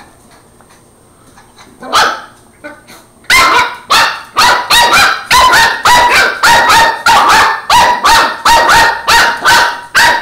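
Border terrier puppy barking at a broom: a single bark about two seconds in, then a fast run of short, high-pitched barks, about three a second.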